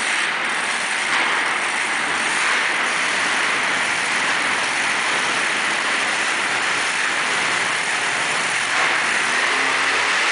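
Monster truck engines running loud and steady, heard as a dense rattling noise, with an engine note coming up near the end.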